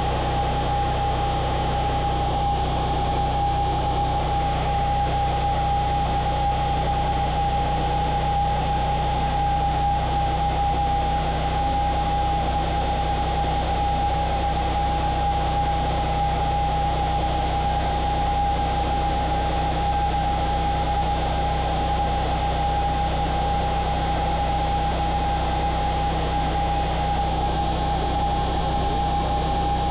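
Portable sawmill running steadily, an unchanging engine drone with a constant high whine over it.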